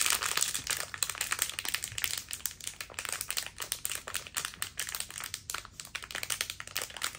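Crinkly wrapper of a mystery pin blind box being handled and opened: a dense, continuous run of small crackles.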